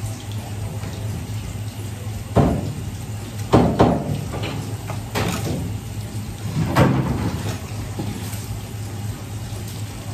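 Tap water running steadily into a sink, with a few sharp knocks, the loudest about three and a half seconds in and others near two and a half, five and seven seconds.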